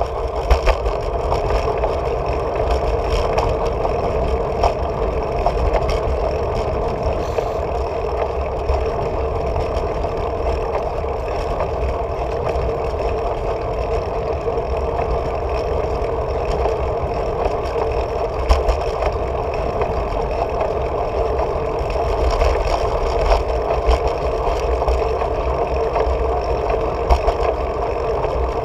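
Steady rolling noise of a bicycle on asphalt, with wind rumbling on a handlebar-mounted camera: a constant mid-pitched hum over an uneven low rumble.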